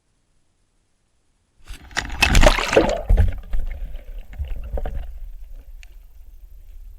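Water splashing and sloshing around a small inflatable boat, with a low rumble and scattered knocks; it starts suddenly after a second and a half of silence, is loudest for about a second and a half, then fades away.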